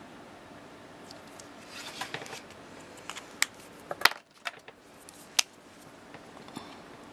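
A few sharp plastic clicks and light clatter as Copic markers are swapped: caps pulled off and clicked back on, markers picked up and put down on the cutting mat, with a soft rustle before the loudest clicks.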